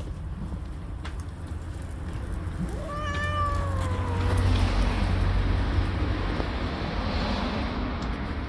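Angry tabby mother cat giving one drawn-out, falling meow about three seconds in, the defensive cry of a mother guarding her kittens from a hand at her shelter. Behind it, a low rumble of street traffic swells after the call.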